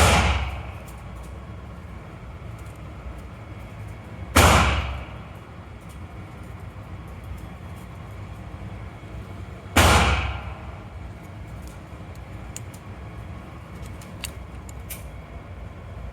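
Three single handgun shots, a few seconds apart, each with a short echoing tail.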